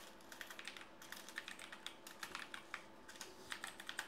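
Typing on a computer keyboard: a run of quick, uneven key clicks, fairly faint, over a low steady hum.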